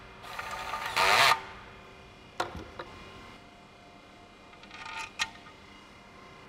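Gloved hands handling a forged wheel and its hardware, with metallic clinks and scrapes: a loud ringing scrape about a second in, a single click a little later, and two sharper clicks about five seconds in.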